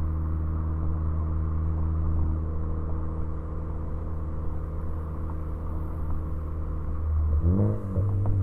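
Tuned Ford Focus ST engine and exhaust running steadily at light throttle, then a quick rev that rises and falls about seven seconds in, with the first sharp exhaust pops starting right at the end.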